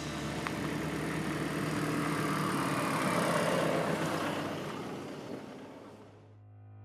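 A car driving past, its engine and tyre noise swelling and then fading away.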